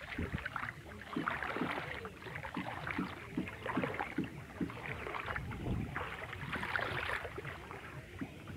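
Hand paddles dipping and splashing in flood water beside a small wooden rowboat, with irregular strokes and water lapping and sloshing around the hull.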